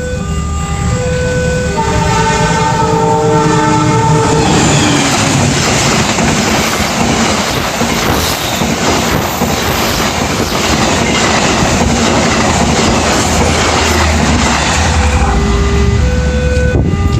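A train horn sounds a held tone for about two seconds, then a train passes with a loud rushing rumble and the clickety-clack of its wheels over the rail joints. Short pitched tones that step from note to note can be heard at the start and again near the end.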